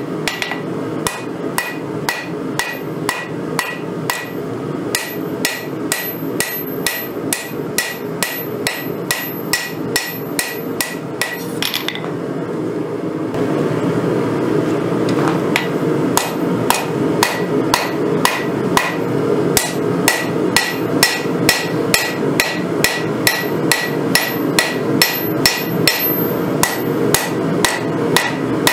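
Hammer blows on red-hot knife steel on a Vevor 132 lb anvil, about two to three strikes a second, each with a bright ringing note from the anvil. The blows stop briefly about twelve seconds in, then resume slightly louder. A steady rushing noise runs underneath.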